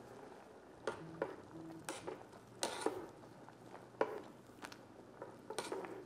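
Tongs stirring ribbon pasta in a stainless steel pot of boiling water, knocking against the pot every second or so over the steady bubbling of the water.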